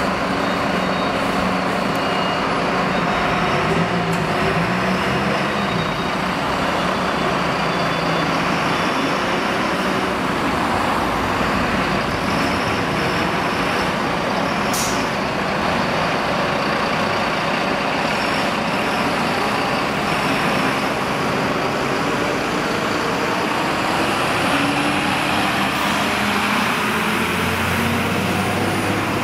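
Diesel engines of heavy fire trucks running as they pull out and drive past, a steady dense vehicle noise, with one short sharp hiss about halfway through.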